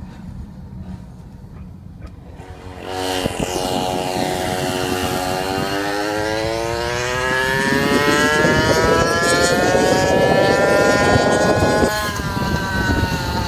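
GoPed GSR 46R's small two-stroke engine at high revs: it comes in loud about three seconds in and its pitch climbs steadily for about nine seconds as the scooter accelerates, then dips slightly near the end. Road and wind noise run underneath.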